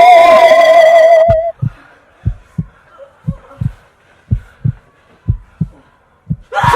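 A held, wavering note ends about a second in. It is followed by a heartbeat sound effect: pairs of low thumps (lub-dub), about one pair a second, six pairs in all.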